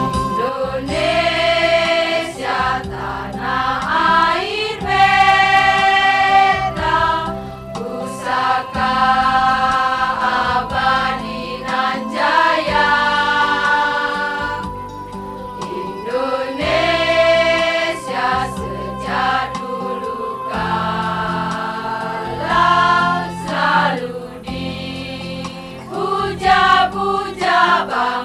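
Music: a song with voices singing long held notes that slide into pitch, over instrumental backing.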